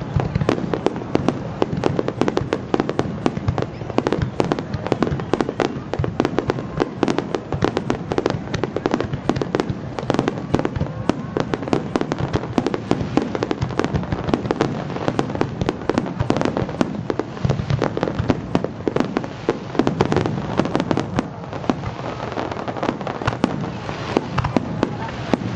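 Fireworks display: a dense, unbroken run of bangs and crackles from bursting aerial shells, many per second.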